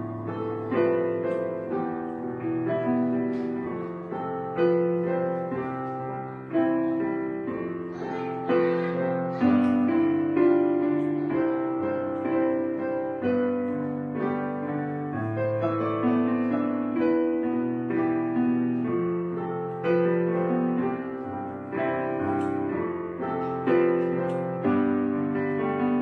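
Background piano music: struck notes that ring and fade, several sounding together, in a steady unhurried flow.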